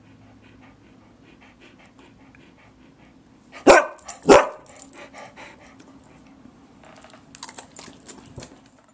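Husky-type dog panting rapidly close by, breaking off with two loud barks about half a second apart midway, then panting on.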